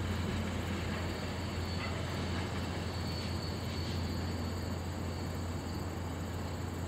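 Steady low rumble and hiss of VIA Rail stainless-steel passenger cars rolling along the track and away.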